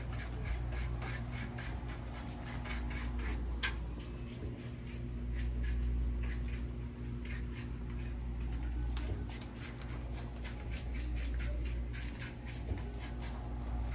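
Indoor shop ambience: a steady low hum with many small, irregular clicks and rustles.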